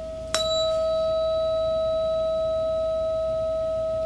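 Tuning fork struck about a third of a second in, then ringing on as a steady pure tone with a faint octave above it. A bright metallic overtone fades within about half a second.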